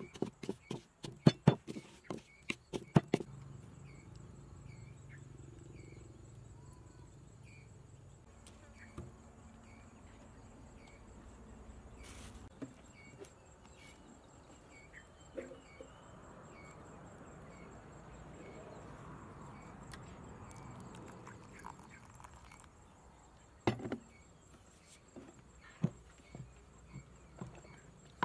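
Wooden pestle pounding garlic and chili into a wet paste in a wooden mortar: a quick run of sharp knocks over the first three seconds, a quiet stretch, then more knocks near the end. Insects chirp steadily throughout.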